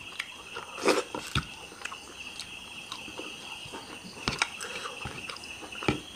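A person eating by hand from a bowl: mouth-chewing and lip smacks with scattered short wet clicks, over a faint steady high-pitched tone.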